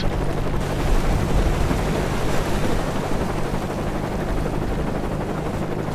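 Sound-effect mix of a helicopter's steady rotor and engine drone with the rushing noise of a huge tsunami wave, holding an even level throughout.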